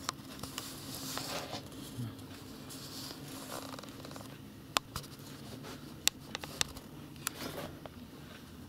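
Close handling noises: cloth rustling in short spells, with a few sharp clicks bunched in the second half.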